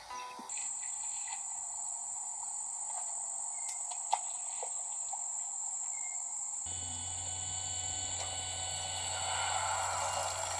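Crickets trilling steadily at a high pitch over a soft outdoor hiss; about two-thirds of the way in, a low steady hum joins.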